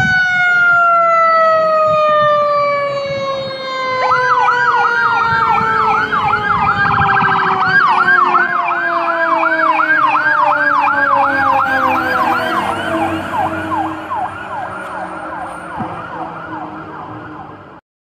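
Fire engine sirens. A mechanical siren winds down in one long, slowly falling tone, and about four seconds in an electronic siren joins it, yelping in quick rising-and-falling sweeps about two or three times a second. The sound cuts off suddenly near the end.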